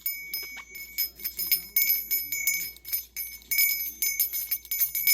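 A small bell rung over and over by a pet, in quick, uneven strikes that keep ringing at the same clear pitches.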